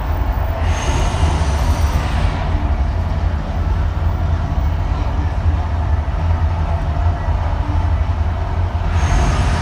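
Steady low rumble of street traffic, with a brighter hiss briefly about a second in and again near the end.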